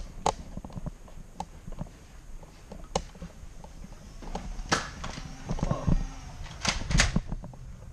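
Irregular footsteps and knocks with small clicks, as of a player walking and handling a toy blaster. The loudest knocks come a little past halfway and again near the end.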